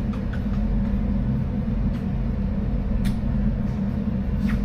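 Steady low rumble, with two faint clicks about three and four and a half seconds in.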